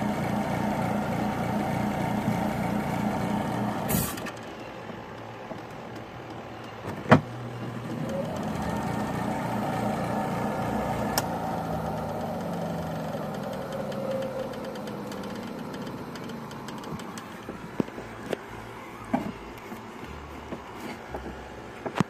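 Motor of a Costway mini twin-tub washing machine running empty with a steady pulsing hum, cut off with a click about four seconds in. A second hum swells and fades away over the middle, followed by a few light clicks.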